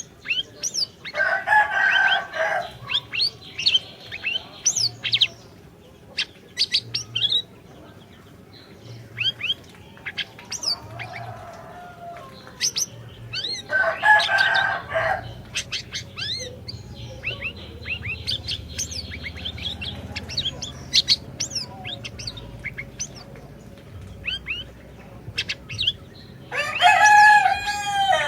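Siri-siri songbird singing a rapid run of sharp chirps and whistled glides. Three louder, harsh calls about a second long break in: near the start, midway, and near the end.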